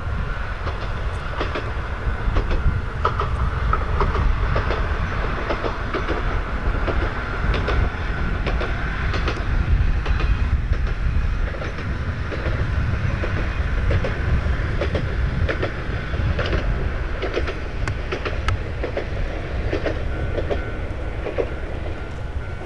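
Shimabara Railway diesel railcar running past, with a continuous low rumble and its wheels clicking over rail joints in an irregular run of sharp clacks.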